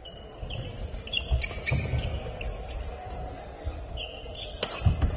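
Badminton doubles rally on an indoor court: rackets striking the shuttlecock in sharp clicks, shoes squeaking and feet thudding on the court floor, with one especially sharp hit about four and a half seconds in.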